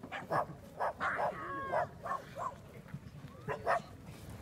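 Repeated short, sharp barks, about ten in a few seconds, a few of them bending into yelps, over a low crowd murmur.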